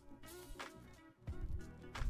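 Background music with a steady beat: drum hits over held low notes.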